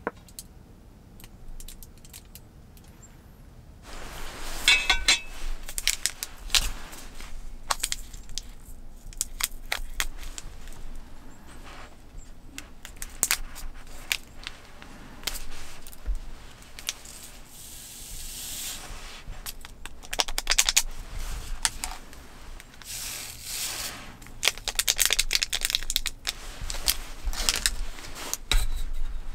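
Small plastic food packets being handled and torn open close to the microphone: crinkling and tearing in several bursts, the loudest about four seconds in and again near the end, with scattered light clicks and taps.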